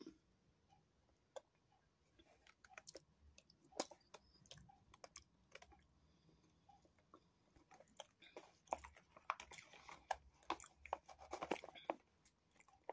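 Faint chewing and small wet mouth clicks of a person eating a forkful of sausage casserole, sparse at first and growing busier about eight seconds in.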